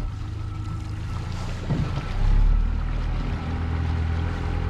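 Outboard motor running at low speed as the boat pulls away, its propeller churning the water; the engine gets louder about two seconds in.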